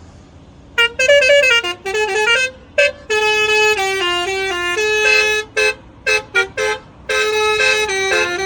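Telolet musical horn on a Honda Mobilio playing tunes: runs of quick stepped notes and longer held tones, sounded in several loud bursts with short breaks between them.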